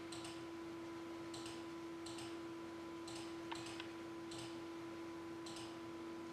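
Faint clicking of a computer mouse: short paired clicks about once a second, over a steady low electrical hum.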